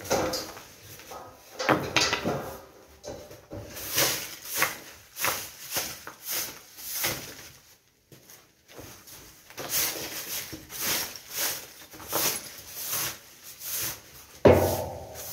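A long-handled tool scraping and knocking demolition rubble across a floor in repeated strokes, roughly two a second, with a short pause partway through. Near the end comes one heavier thump, the loudest sound.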